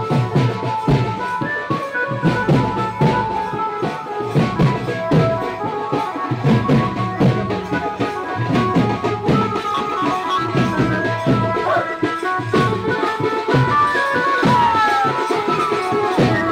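Wedding band-party music, loud and unbroken: drums beating a dance rhythm under sustained melody notes.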